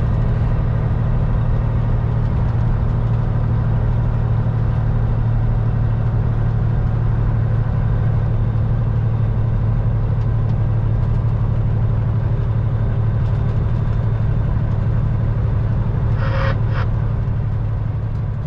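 Caterpillar C15 diesel in a Peterbilt 379 semi running steadily at cruise, a deep steady drone inside the cab with road noise. A short burst of CB radio static comes about two seconds before the end, and the sound begins to fade out near the end.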